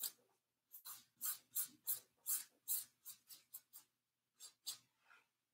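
Paintbrush strokes on a stretched canvas: a run of short strokes, about three a second, with a brief pause about a second before the end.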